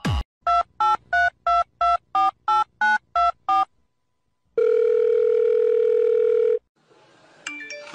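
Touch-tone telephone dialing: about eleven quick key beeps in a row, then a steady ring tone on the line for about two seconds as the call goes through.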